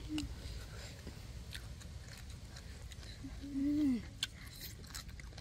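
Crunchy chewing and small clicks of someone eating stir-fried water spinach, with a short hummed 'mm' just after the start and a louder, longer rising-then-falling 'mmm' about three and a half seconds in.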